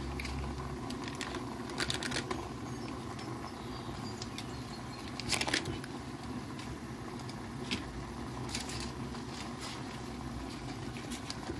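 Minced garlic sizzling faintly in a hot pan, a steady hiss over a low hum, with a handful of short crackles and soft knocks as sticks of butter are dropped in.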